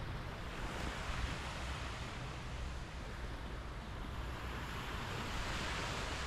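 Waves washing onto a beach, the surf swelling and easing twice, with wind rumbling on the microphone.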